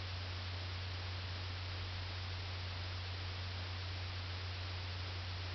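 Steady low electrical hum under an even faint hiss, unchanging throughout: the recording's background noise, with no other sound.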